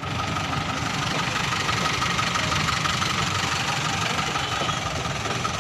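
Passenger train coaches rolling past at speed close by: a steady rumble of wheels on the rails with a thin steady whine over it.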